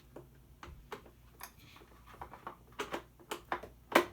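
Irregular clicks and ticks of a screwdriver working at a small screw in a plastic toy, the bit struggling to get grip, with a sharper knock near the end.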